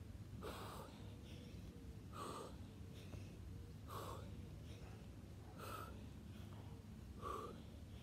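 A man breathing hard from exertion, with a short forceful exhale about every second and a half, in time with fast alternate side lunges.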